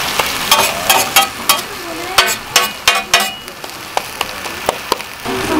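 Metal spatula scraping and tapping on a hot oiled griddle in a quick run of sharp strikes, while a vegetable jeon fries and sizzles under it.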